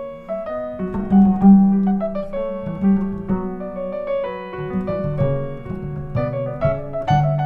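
Acoustic grand piano and upright double bass playing jazz together: the piano carries a busy line of chords and melody over the bass's low, sustained notes.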